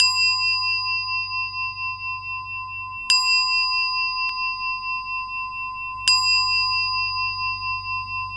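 A meditation bell of the singing-bowl kind struck three times, about three seconds apart. Each strike rings on in a steady, slowly fading tone that wavers slightly.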